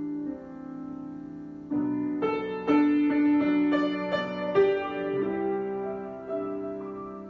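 Improvised solo piano: a held chord, then a new chord about two seconds in followed by a run of struck notes, settling into softer sustained chords that fade toward the end.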